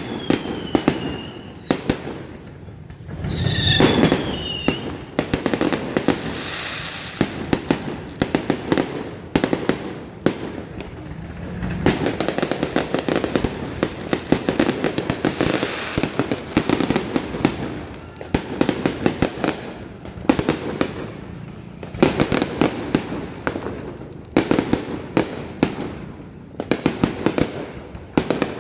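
Fireworks display going off continuously: dense bangs and crackling bursts, one on top of another. A few short whistling tones come in the first five seconds.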